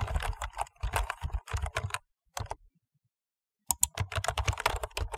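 Fast typing on a computer keyboard, a quick run of keystroke clicks that stops for over a second around the middle, then starts again.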